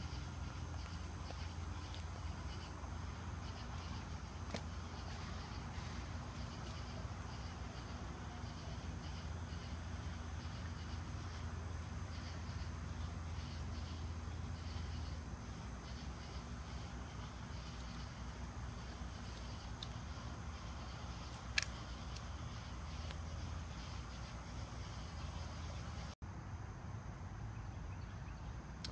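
Night insects trilling steadily, with a low hum beneath. A single sharp click comes about two-thirds of the way through.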